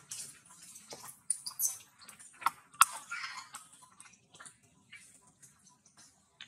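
Dry leaves and twigs crackling and rustling irregularly under a walking macaque's feet, with a sharp snap just under three seconds in.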